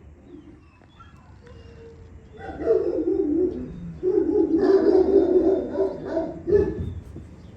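Low, rough animal calls, loud and close, in two long stretches starting a couple of seconds in, with a short final call near the end.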